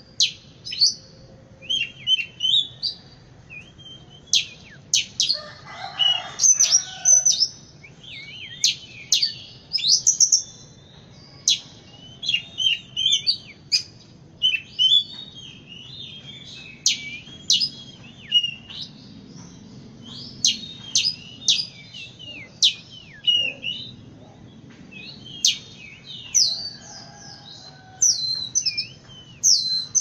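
Oriental magpie-robin singing: a continuous run of varied whistled phrases made of quick rising and falling notes and sharp chirps, with short pauses between phrases.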